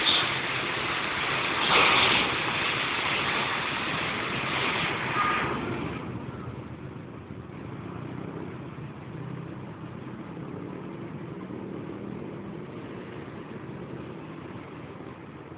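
Street traffic: passing vehicles make a loud rush for the first six seconds, peaking about two seconds in, with a brief high tone about five seconds in. After that it settles to a quieter low engine hum.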